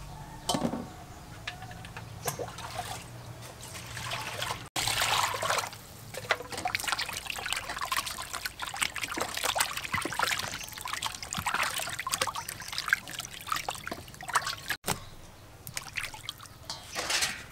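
Water splashing and trickling as hands rub and squeeze raw pork in a stainless-steel bowl of water to wash it, with small clicks of the meat and hands against the bowl; the sound breaks off abruptly about 5 and 15 seconds in.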